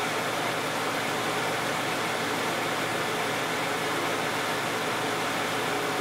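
2010 Toyota Camry's 2GR-FE 3.5-litre V6 with 161,500 miles, idling steadily while warming up from a cold start.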